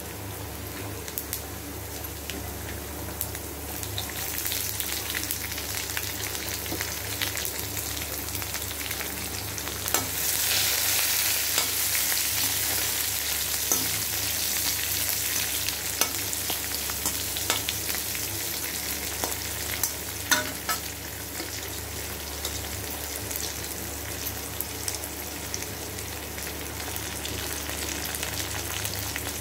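Hot oil sizzling in a metal kadai as onions and spices fry, with a metal spatula clicking and scraping against the pan as it stirs. The sizzle swells sharply about ten seconds in, then eases off gradually.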